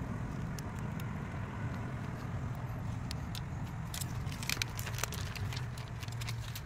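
Steady low rumble of an idling vehicle engine, with light crackles and clicks of plastic window tint film being handled, thickest about four to five seconds in.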